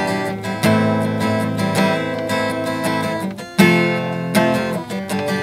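Acoustic guitar strummed in chords, with a hard strum about three and a half seconds in.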